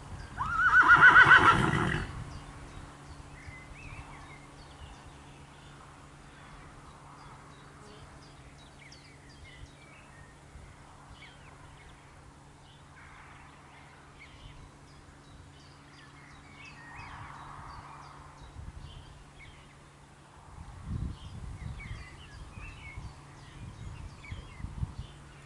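A single loud animal call, about a second and a half long near the start, quavering and falling in pitch. Faint bird chirps and a steady low hum run underneath.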